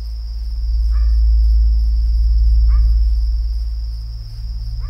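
Crickets chirping steadily in a night ambience over a loud, deep, low drone that swells about a second in. Three short, faint falling calls stand out: about a second in, about three seconds in, and near the end.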